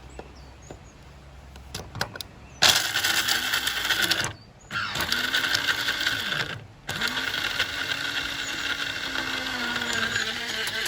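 Electric coffee grinder blitzing mixed nuts in three pulses: a short burst, a second of about two seconds, then a longer run that keeps going, the motor's pitch sagging and recovering as each pulse stops and starts. A few light clicks come before the first pulse.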